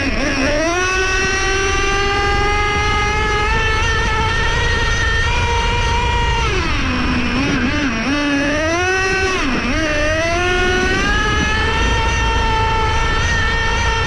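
Traxxas Revo 3.3 nitro RC truck's TRX 3.3 two-stroke glow engine revving up and holding a high, buzzing pitch, dropping back to idle about halfway through, blipping the throttle twice, then climbing and holding high again.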